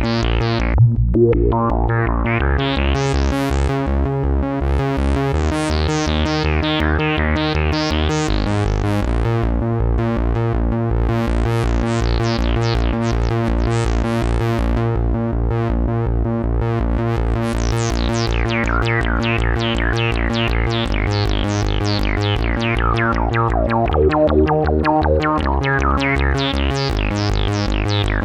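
Korg Polysix analog synthesizer playing a patch: sustained chords that change every few seconds over a fast pulsing bass, with bright filter sweeps rising and falling above them.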